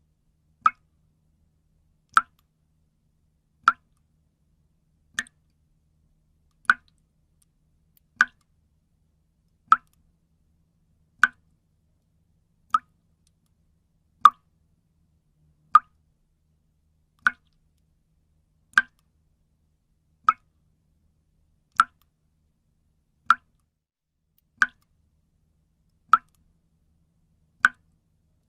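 Water dripping, single drops falling one at a time at an even pace, about one every second and a half.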